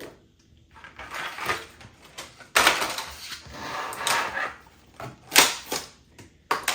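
Plastic toy packaging being handled and opened: irregular crackling and rustling, with a few sharp, loud clicks, the loudest about halfway through.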